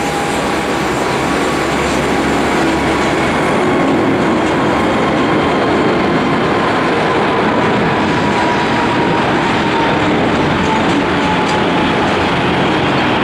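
Airbus A380-800's four Rolls-Royce Trent 900 jet engines at takeoff power: a loud, steady roar that builds slightly over the first few seconds, with a faint whine slowly falling in pitch.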